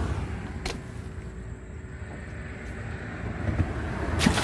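Wind buffeting the microphone with a low rumble, broken by a sharp click about a second in. Near the end comes a short, loud burst of noise as the freshly caught sunfish goes into the water-filled plastic cooler.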